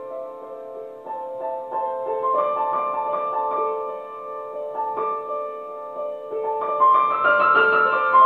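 Upright piano played solo: single notes and chords ringing on, softer in the middle and growing fuller and louder near the end.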